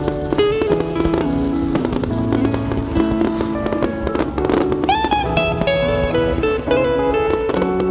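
Background music: an instrumental break of a pop-rock song, with held guitar notes over a steady beat and a bent guitar note about five seconds in.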